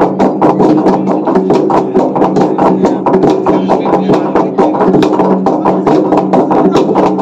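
A Wancho kham, a large hollow log drum, beaten fast by a group of men with wooden beaters: a dense run of wooden knocks, several a second, over a steady ringing drone.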